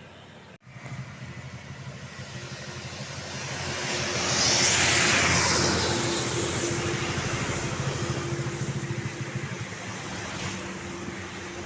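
A motor vehicle passing close by with its engine running, growing louder to a peak about five seconds in, then slowly fading.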